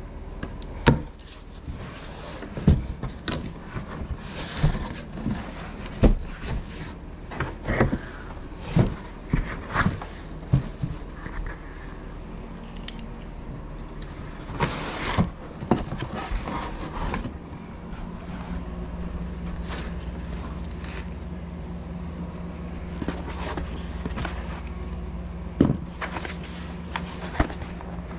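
Irregular knocks, clicks and scrapes of a boxed desktop computer and its packaging being handled, busiest in the first half, over a steady low hum that grows a little stronger past the middle.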